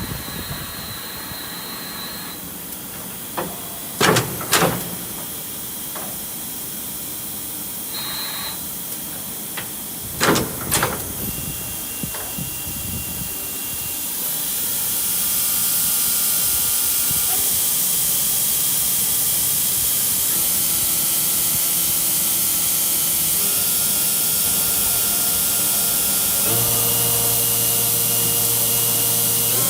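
Kira HPC-30V CNC tap and drill center running: two pairs of sharp mechanical knocks, then a louder steady hiss from about halfway, with machine tones that step in pitch several times.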